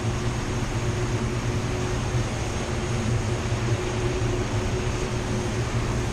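Spray booth ventilation running: a steady rush of air with a constant low hum.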